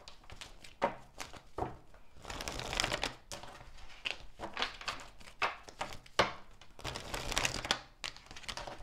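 A deck of cards being shuffled by hand: soft slides and flicks of cards with a few sharper taps as they knock together, and longer runs of shuffling about two and a half and seven seconds in.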